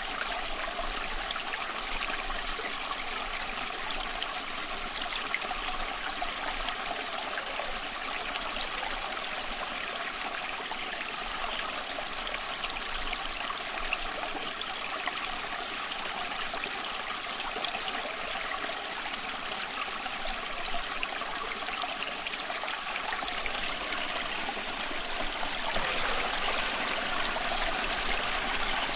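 Small stream flowing and trickling steadily over stones, a continuous babbling with a slight swell near the end.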